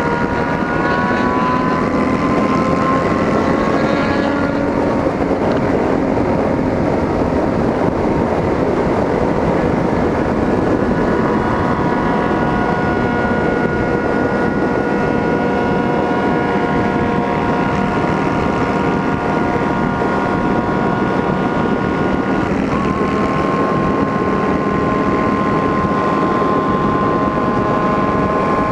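Yamaha Drag Star and Fazer 600 motorcycles with straight-pipe exhausts running on the road, engine pitch rising over the first few seconds and then holding at a steady cruise, with a small step up in pitch near the end. Wind rush sits underneath.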